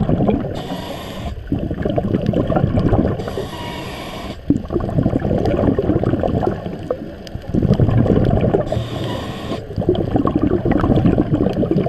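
Scuba regulator breathing close by underwater: three hissing inhales of about a second each, each followed by a long crackling gurgle of exhaled bubbles.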